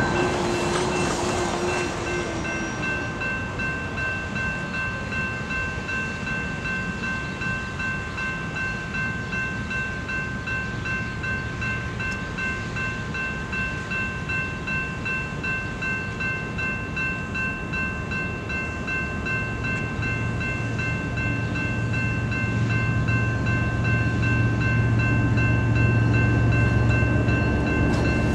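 Approaching BNSF diesel freight train: a low locomotive rumble builds steadily over the last several seconds. Throughout, a steady high-pitched ringing pulses rapidly.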